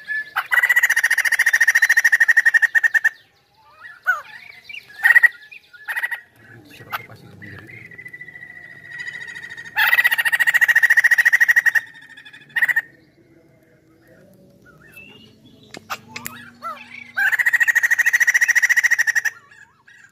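White-crested laughingthrush singing. Three loud bouts of rapid chattering notes, each lasting about two seconds, come near the start, in the middle and near the end, with softer calls and a held whistle between them.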